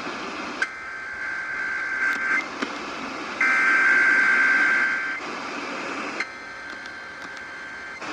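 Emergency Alert System SAME header: three bursts of high warbling digital data tones, each under two seconds and about a second apart, the middle one the loudest. Heard over AM radio reception with steady hiss underneath.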